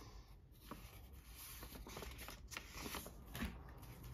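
Faint rustling and light taps of old paper greeting cards being handled, one laid down and the next picked up from the pile.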